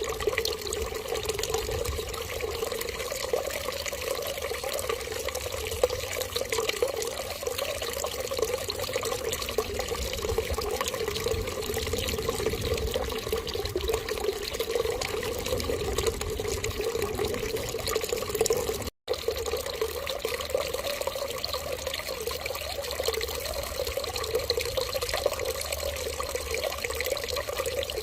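Steady running water, like a tap left running, with an even rushing hiss. It cuts out for an instant about two-thirds of the way through, then resumes.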